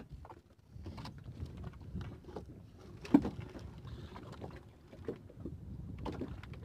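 Water sloshing against a small fishing boat's hull, with scattered knocks and taps from work aboard and one sharp knock about three seconds in.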